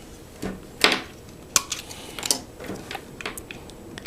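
Irregular light clicks and taps of a small plastic device and its cable being handled, about eight in all, the loudest a little under a second in.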